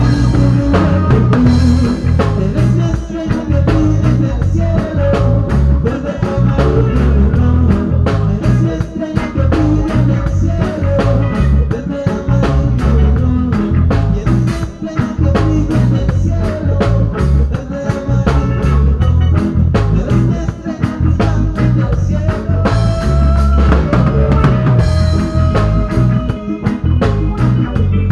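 Upbeat band music with drums keeping a steady beat.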